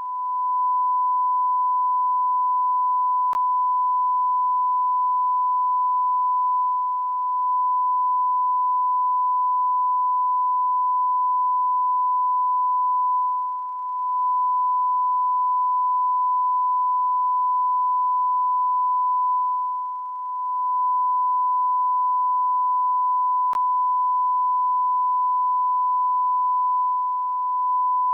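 A continuous electronic beep: one steady pure tone held without a break, dipping slightly in loudness for a moment about every six to seven seconds.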